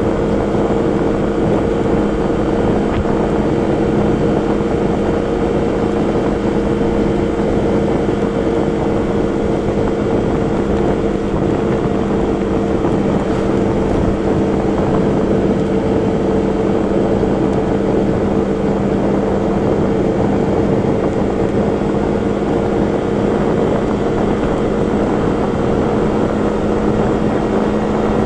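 A vehicle's engine running at a steady pitch while cruising, mixed with wind and road noise.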